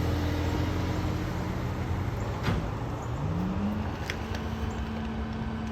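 Garbage truck engine running steadily, its pitch rising about three seconds in and then holding at the higher engine speed, with a sharp click or clank about halfway through.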